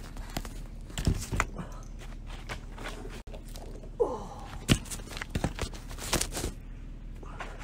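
Footsteps and scattered clicks and knocks of movement over a steady low hum. About four seconds in comes a short tone that falls in pitch.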